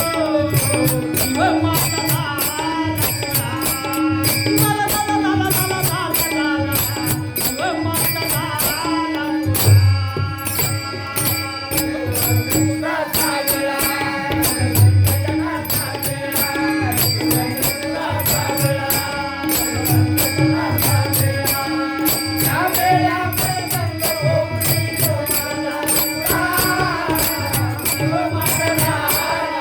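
Marathi devotional folk music: a melody bends up and down over a steady drone, with regular low drum beats and an even, quick metallic jingling beat.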